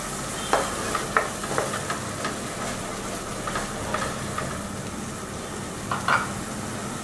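Ground masala paste sizzling in hot oil with frying onions in a pressure cooker, a steady hiss, while a spatula stirs it and scrapes the pan a few times.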